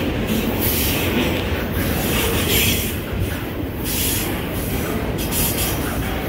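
Double-stack container cars of a freight train rolling past, with the steady noise of steel wheels running on the rails.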